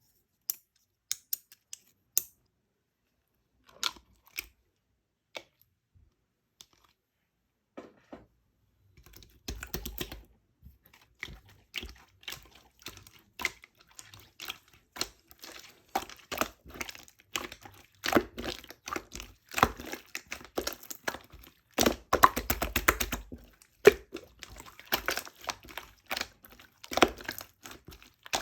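Sharp clicks and crackles, scattered at first, then coming thick and fast from about nine seconds in.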